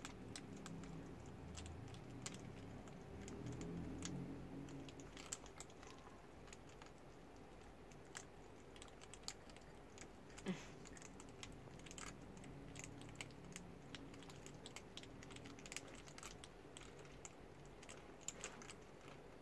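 Baby hedgehogs crunching dry kibble: faint, irregular small clicks, scattered throughout.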